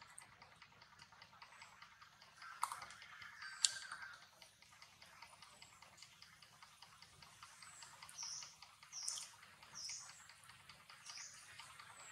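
Faint outdoor ambience with a fast, even ticking throughout, two sharp clicks about a quarter of the way in, and a run of short, high, falling chirps in the last third.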